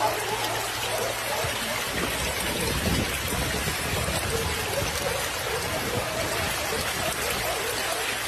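Running water: a steady even hiss with a wavering babble, like a stream.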